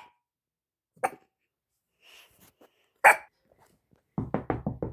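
Small dog giving three sharp single barks, about a second or two apart, alarmed at a knock at the door. Near the end a fast run of knocking starts, about eight strokes a second.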